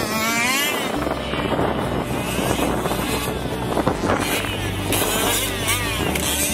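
Small two-stroke petrol engine of a 1/5-scale RC off-road car, revving up and down over and over as it drives and jumps. Wind rumbles on the microphone from about a second in.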